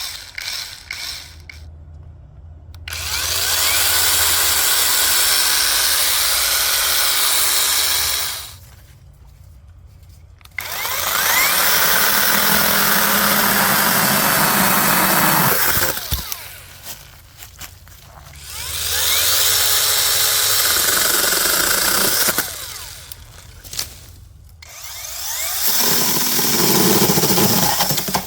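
Brushless 21-volt battery mini chainsaw with a 6-inch bar cutting wood in four runs of two to five seconds each, with quieter pauses between them.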